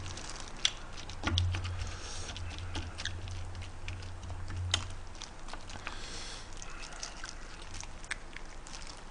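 Metal spoon scraping and tapping inside a swimming crab's (flower crab's) shell as rice is mashed and stirred together with the roe and innards: scattered small clicks and scrapes, with two sharper taps about one second and five seconds in.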